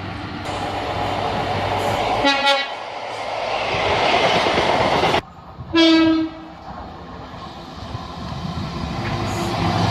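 Two short train horn blasts, about three and a half seconds apart, the second one louder, over the rumble of a train running past.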